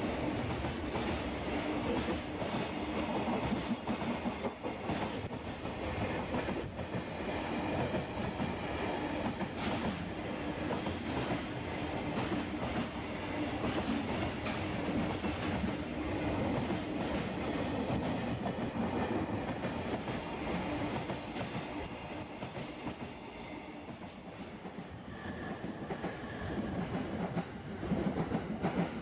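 Freight train running past at speed, its wagons' wheels clattering steadily over the rail joints, easing a little for a few seconds and then building again near the end.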